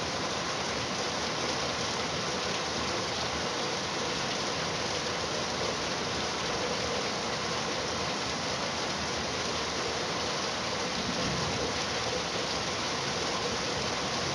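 Steady rainfall, an even hiss of rain with no breaks.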